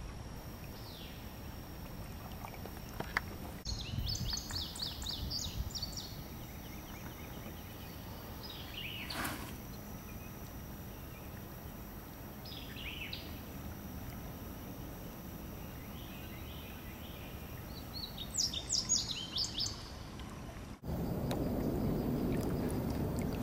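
Riverside background with wild birds calling: a burst of rapid high chirps about four seconds in, a few single calls in the middle, and another chirping burst near the end, over a steady low hiss. Shortly before the end it switches abruptly to louder water noise.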